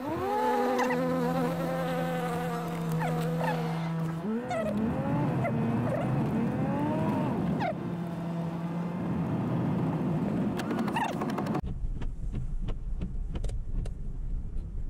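A buzzing, insect-like intro sound effect with pitch that glides up and down and holds steady notes, cutting off abruptly near the end. After it, the low rumble of a Mazda Bongo van's engine running, fitted with a new rear silencer, heard inside the cab with a few light clicks.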